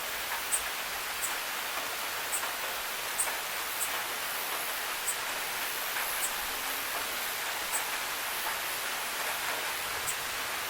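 Steady rain falling as an even hiss, with sharp drip ticks at irregular spacing, about one a second.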